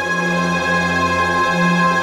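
Background music: held, sustained tones over a steady low drone.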